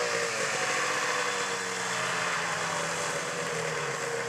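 Snowmobile engine running at steady throttle as the sled rides across the snow, its note easing slowly lower.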